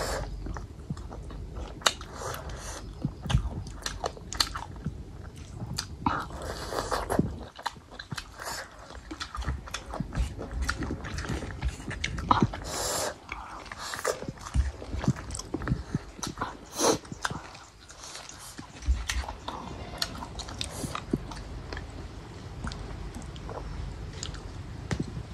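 A person chewing and biting into cooked mutton goat head, with irregular crunches and clicks as the meat and gristle are eaten.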